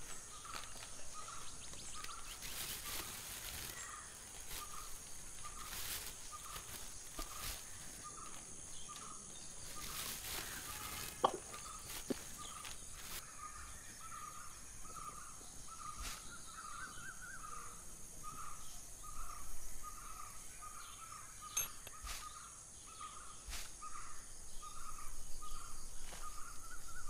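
Woodland ambience: a steady high insect hum, with a short call repeating evenly about one and a half times a second. Newspaper rustles as it is spread out and smoothed, mostly in the first ten seconds, with one sharp click about eleven seconds in.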